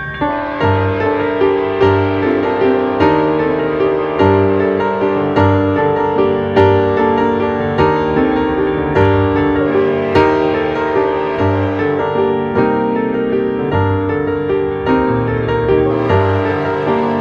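Piano music: a steady flow of chords over regular low bass notes.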